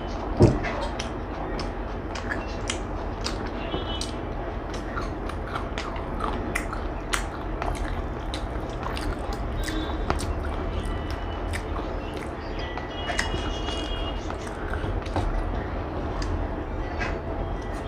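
Close-up eating sounds: chewing and biting with many small wet clicks and smacks, over a steady low rumble. A sharp knock about half a second in.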